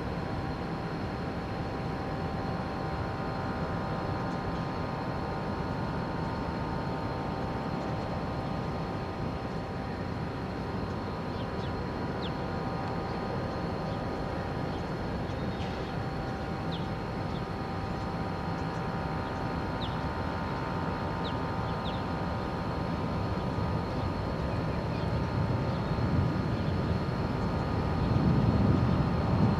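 Steady low drone of a large ship's engines and machinery, with several steady hum tones over a rumble. It grows louder near the end.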